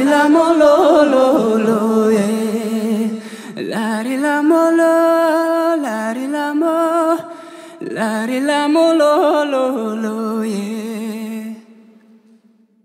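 Male voice singing the closing phrases of a slow ballad in three long held lines with vibrato, over a sustained accompaniment chord. The music fades out near the end.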